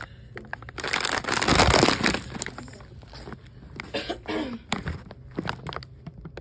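Plastic bags of cough drops crinkling and rustling as they are handled and turned over, with a louder stretch of crinkling about a second and a half in and scattered sharp crackles after.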